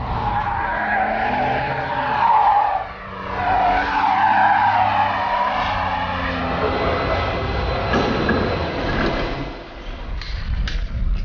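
A car driven hard, its engine note rising and falling with a steady squeal of tyres.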